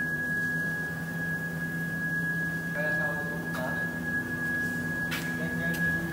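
CNC wood router spindle running at speed: a steady high-pitched whine over a low machine hum, with a brief click about five seconds in.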